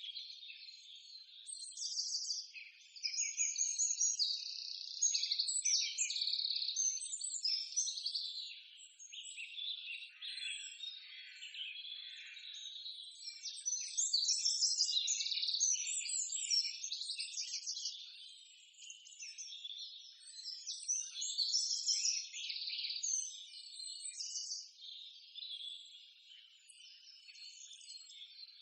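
Forest birds chirping and calling, many short, high calls overlapping continuously.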